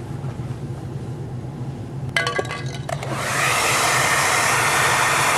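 A few clicks and rattles as a handheld hair dryer is handled, then the dryer switches on about three seconds in and runs steadily with a loud rush of air. It is blowing hot air on a dented plastic car bumper to soften it. A low steady hum runs underneath.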